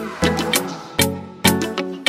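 Background music with a steady, upbeat beat.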